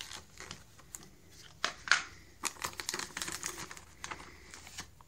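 Crinkly pouch of Greenies cat treats being handled, in an irregular run of rustles and sharp crackles, loudest about two seconds in.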